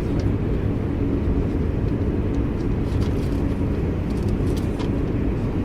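Eurostar high-speed train heard from inside the carriage as it leaves the Channel Tunnel: a steady low rumble of the running train, with faint light clicks and rattles scattered over it.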